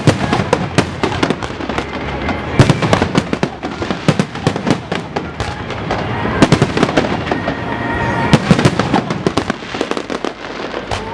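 Aerial fireworks bursting in rapid succession: a dense run of sharp bangs and crackles, several a second, with no pause.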